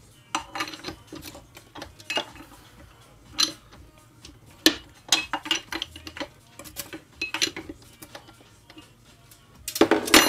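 Irregular metal clinks and knocks of engine parts being handled as a Suzuki DRZ400 engine is taken apart, with a denser run of louder clinks and ringing near the end as the timing chain is handled.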